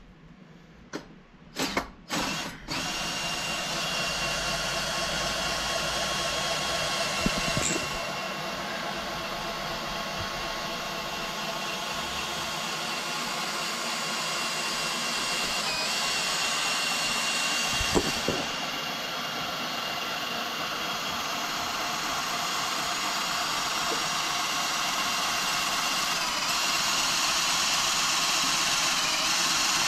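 A few clunks, then an electric motor starts about three seconds in and runs steadily with an even whine, growing slightly louder. Two single knocks, one about eight seconds in and one about eighteen seconds in.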